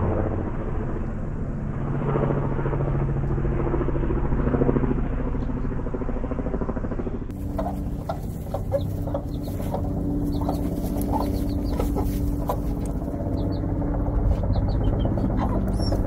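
A steady low rumble for the first half. Then chicks peep in short, high chirps while a hen clucks.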